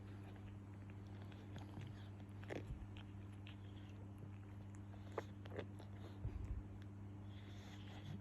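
A sleeping English Bulldog puppy making a few soft, scattered mouth and nose noises, heard over a low steady hum.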